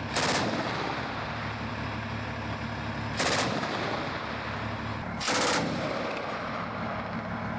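Short bursts of heavy automatic fire from a tracked armoured vehicle's gun, three bursts each under half a second and a few seconds apart, over the steady low hum of its engine.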